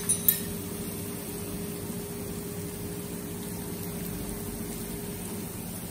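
Steady low mechanical hum with an even hiss, from a fan or appliance running. Two light taps come right at the start.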